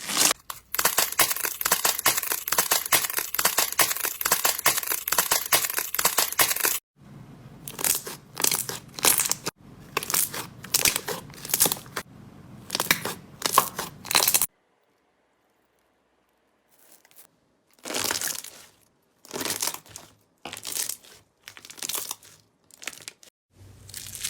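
Slime being pressed and squeezed by hand, crackling and crunching: dense crackling at first, then after a cut a run of separate crunchy squeezes, a short silent gap a little past halfway, and single squishes spaced about a second apart near the end.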